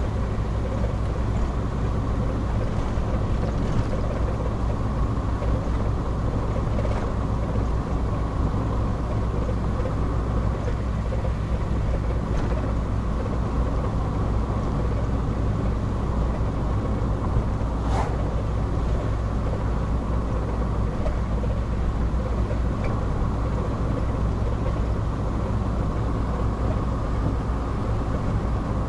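Car cruising steadily on the open road: a constant low drone of engine and tyre noise inside the cabin, with one short click partway through.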